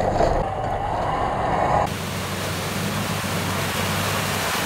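Off-road 4x4 engines running under load. About two seconds in, the sound cuts to a Mitsubishi Pajero Sport ploughing through deep mud, heard mostly as a steady rushing noise.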